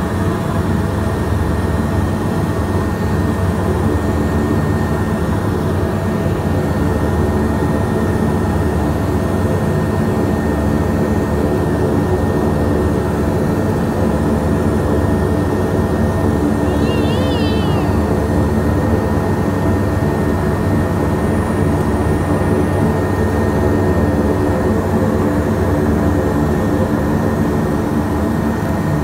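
Twin Garrett TPE331 turboprop engines of a Jetstream 32 running steadily during taxi, heard from inside the cabin: an even drone with a hum of several steady pitched tones.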